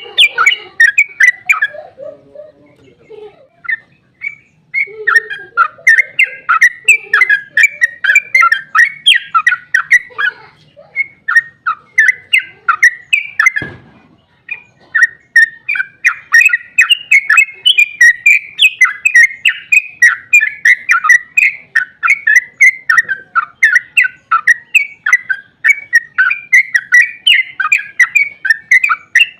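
Yellow-vented bulbul (trucukan) singing a long, rapid run of chattering notes with hardly a break, the continuous 'ropel' song used as a lure to make other bulbuls answer. A single dull thump comes about halfway through.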